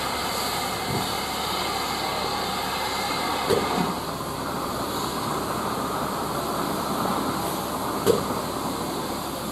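Steam locomotive running slowly tender-first with a steady hiss and rumble, and a few sharp clanks, the loudest about eight seconds in.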